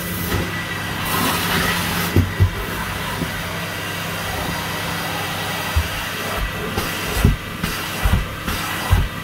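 Carpet extraction machine running, a steady hiss with a faint whine as its stair wand works the carpet, with several short low thumps from the wand and phone being handled.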